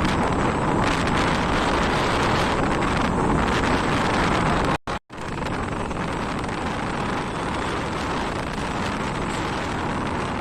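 Steady rumble of a moving vehicle with wind buffeting the microphone, cut off abruptly for a moment about five seconds in, then continuing a little quieter.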